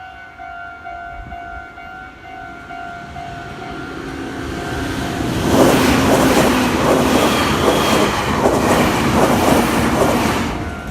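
Level-crossing warning bell ringing in a steady rapid repeat as a Meitetsu electric train approaches with a rising rumble. About five seconds in the train passes close by, loud, its wheels clattering over the rail joints and drowning out the bell, until it has nearly gone by at the end.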